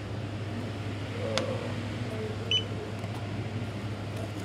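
A checkout barcode scanner beeps once, a short high tone, about two and a half seconds in, over a steady low hum. A sharp click comes a little after a second in.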